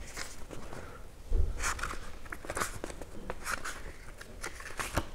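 Pages of a printed book being turned and handled: short papery flicks and rustles, with a dull handling thump about a second in.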